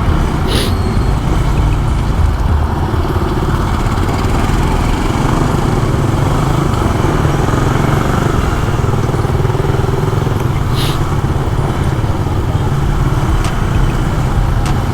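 Motorcycle riding steadily on the road, its engine running under a constant low rumble of wind and road noise on the rider's microphone. The bike is a Yamaha Sniper underbone.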